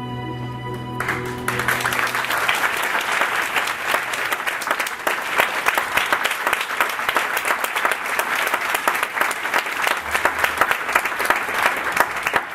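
Audience applauding, breaking out about a second in as the last held chord of the orchestral music fades, then going on steadily.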